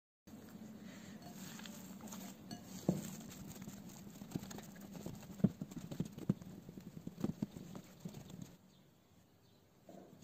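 Soft, irregular thuds and pats of hands punching down and kneading pizza dough against a table, over a low steady hum.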